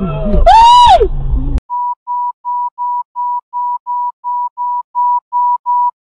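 A loud pitched wail that rises and then falls cuts off abruptly after about a second and a half, giving way to a steady run of short, identical electronic beeps at one pitch, about three a second.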